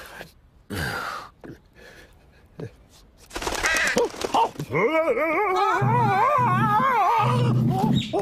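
A cartoon character's wordless voice: a few short grunts and exclamations, then from about halfway a long wavering wail that rises and falls in pitch.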